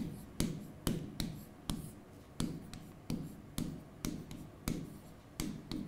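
Stylus tapping and writing on a tablet: a series of sharp, short clicks, roughly two a second.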